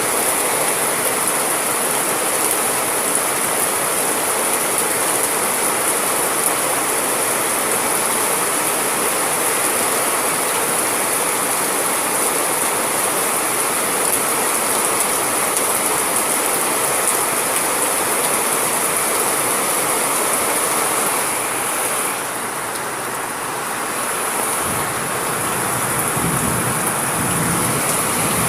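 Steady heavy rain, a dense even hiss that eases slightly about two-thirds of the way through. Near the end comes a low rumble of distant thunder.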